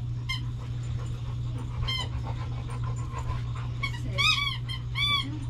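A dog whining in short, high-pitched whimpers, one about two seconds in and several close together near the end, over a steady low hum.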